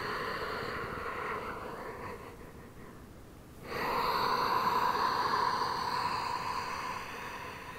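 A woman breathing slowly and audibly in a yoga breathing exercise: a long inhale, a short pause about three seconds in, then a longer, louder exhale.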